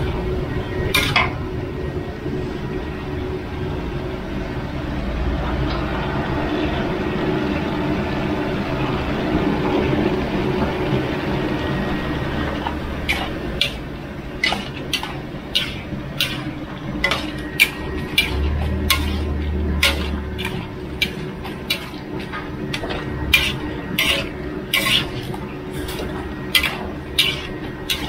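A metal spatula stirs a large batch of bamboo shoot and fish-ball stir-fry in a big wok over a steady hiss. About halfway through, the spatula starts knocking and scraping against the wok with regular clanks, about two a second.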